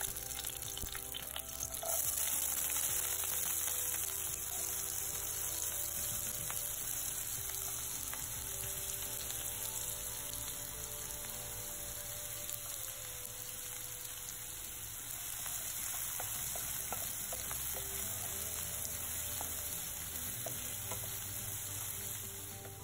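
Chopped onion, garlic and mustard seeds frying in hot oil in a pan, a steady sizzle that grows louder about two seconds in and eases near the end.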